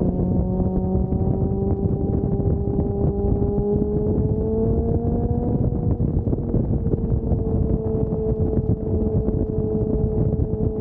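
Motorcycle engine running under way. Its pitch climbs slowly for about five seconds, then drops a little and holds steady. Heavy wind noise on the microphone runs underneath.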